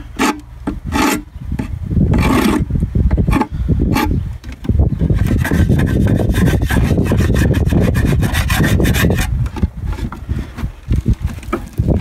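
Metal hive tool scraping hardened propolis off the wooden frame rest of a beehive box. A few separate strokes come first, then quick, continuous scraping through the middle, easing back to scattered strokes near the end.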